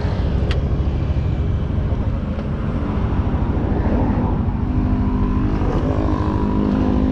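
Motor scooter engine running with steady road and wind noise on the camera's microphone. A sharp click sounds about half a second in.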